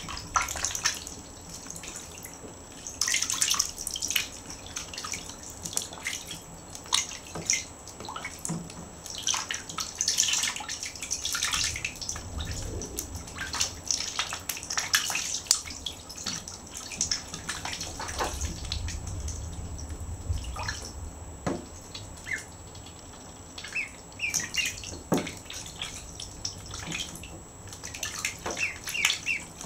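Ducklings paddling and splashing in shallow bathtub water: a run of short, irregular splashes and drips.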